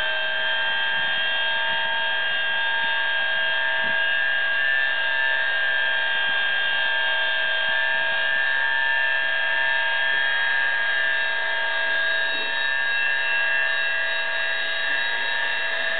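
Comer D2 circular saw running unloaded at full speed: a steady motor-and-blade whine with several fixed pitches, held level throughout. It is loud, about 98 dB on a sound level meter held close to the saw.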